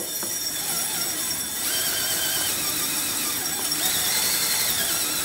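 Steady whirring with a wavering high squeal while the driven pulley of a 30 series torque converter is cleaned.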